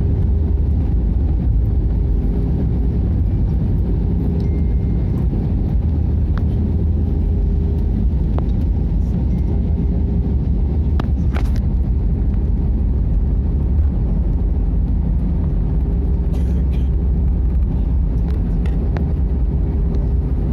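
Airbus A320-200 cabin noise: a steady, loud low rumble of engines and airflow heard from inside the cabin, with a faint steady hum and a few light clicks.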